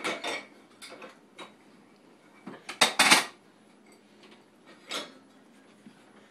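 Metal cutlery and dishes clinking and clattering as they are handled, in a series of separate clatters, the loudest cluster about halfway through.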